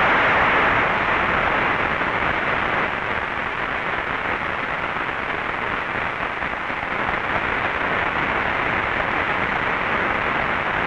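Large theatre audience applauding steadily, loudest near the start.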